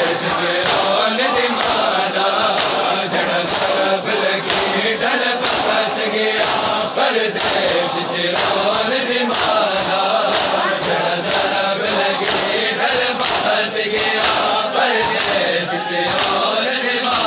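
A crowd of male mourners chanting a noha lament in unison while beating their chests in matam, the hand slaps keeping a steady beat under the chant.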